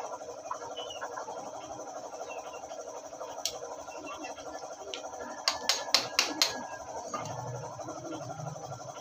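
Sharp metal clicks from parts being handled and fitted inside a motorcycle engine's opened crankcase: a single click about three and a half seconds in, then a quick run of five clicks around six seconds in, over steady background noise.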